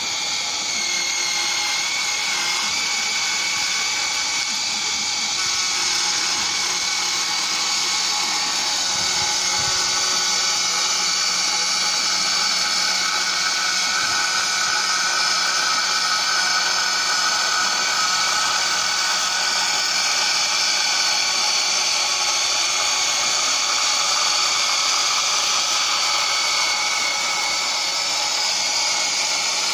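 Electric motor of an AXXAIR CC122 orbital pipe cutter running with a steady whine while its cutting head is turned around the pipe to cut it.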